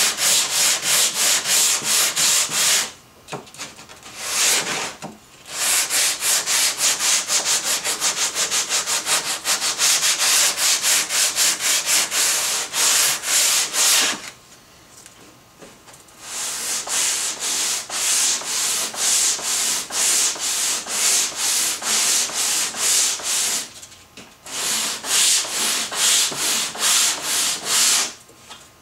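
Shop-made wooden sanding block with adjustable wing handles pushed back and forth along a wooden board, the sandpaper rasping at about four strokes a second. The strokes come in long runs with short pauses three times.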